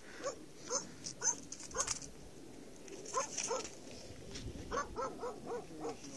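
About a dozen short, high-pitched animal yelps, spaced out at first and coming in quicker succession near the end.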